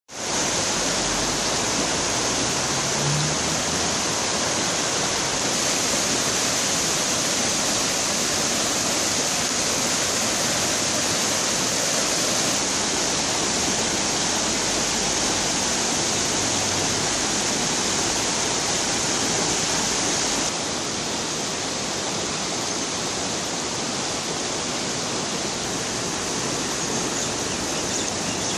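Fast, swollen muddy river in spate rushing over its shallow, rocky bed: a steady, unbroken rush of water, dropping slightly in level about two-thirds of the way through.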